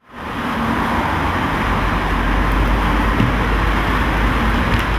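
Steady street traffic noise with a low rumble, fading in quickly at the start.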